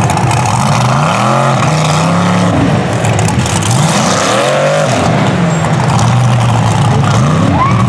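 Mega truck's engine revving hard as the truck is driven over a dirt race course. The revs climb and drop several times as the driver works the throttle.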